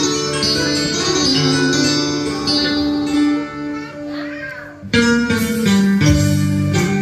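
Karaoke backing track with plucked guitar, played loud through a karaoke speaker system. Just before five seconds in the music dips, then comes back louder and fuller.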